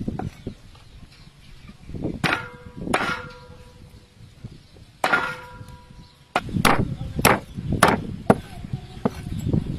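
Steel meat cleaver chopping raw chicken wings on a wooden chopping block. A few separate strikes leave the blade ringing briefly, then from about six seconds in come steady chops, about two a second.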